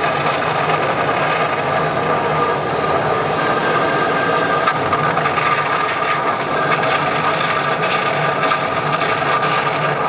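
A ship's machinery sound effect played through a model warship's onboard sound system: a steady, unbroken engine-room drone with a faint hum and whine held under it.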